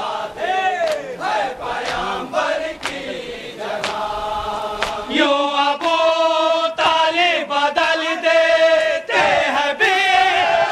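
Male voices chanting a nauha, a Shia Muharram lament, with a fuller chorus joining in about halfway through. Sharp slaps land roughly once a second under the chant: mourners beating their chests in matam.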